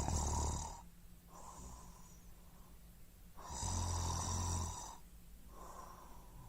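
Snoring sound effect: loud snores about four seconds apart, each followed by a fainter breath out.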